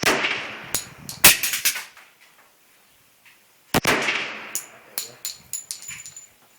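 Three .45-calibre pistol shots from a Magnum Research 1911, each with echo trailing after it. The second shot, about a second in, is the loudest, and the third comes nearly four seconds in. Lighter clicks and clinks follow near the end.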